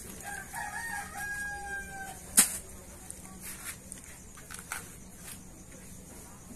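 A rooster crows once, a call of about two seconds. Just after it comes a single sharp click or knock, the loudest sound here, and a few fainter clicks follow.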